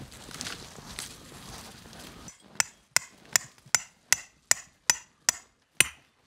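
A ground stake being hammered in: after a couple of seconds of soft rustling, nine sharp, evenly paced strikes begin a little over two seconds in, about two and a half a second.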